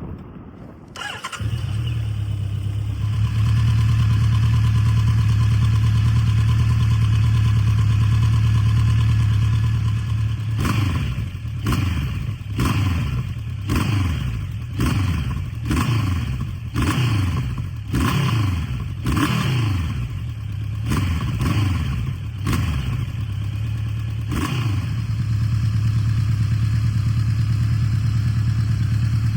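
2017 Honda CB1100 RS's air/oil-cooled 1140 cc inline-four on its stock exhaust, starting about a second in and idling steadily. It then gives a series of short throttle blips about one a second, each rev dropping back, and settles into idle again near the end.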